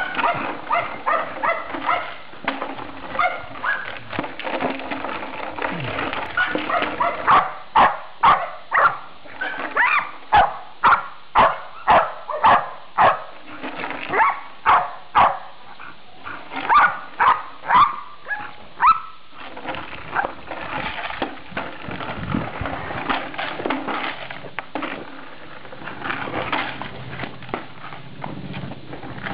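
Pit bull barking: a steady run of loud barks, about one and a half a second, through the middle, with quieter calls before and after.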